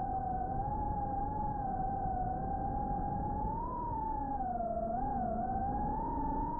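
FPV drone's motors whining as one steady tone whose pitch wavers with the throttle, dipping about five seconds in and climbing again near the end.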